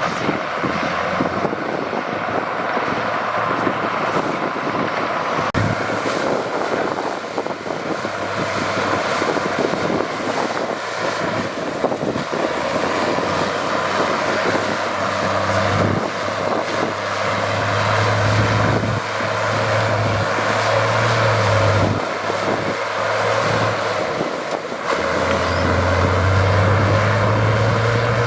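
Diesel engine of heavy earthmoving machinery running steadily, with its note rising and holding higher in spells during the second half.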